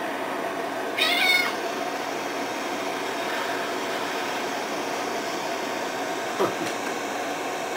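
A cat meows once, a short high-pitched call about a second in that falls in pitch at the end, over a steady background hum. A brief fainter call follows shortly before the end.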